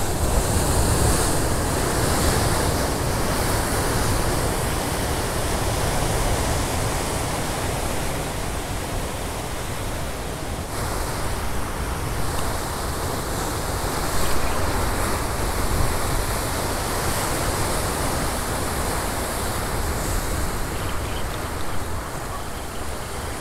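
Ocean surf breaking and washing over coastal rocks close by: a continuous rush of whitewater that swells and eases a little without pause.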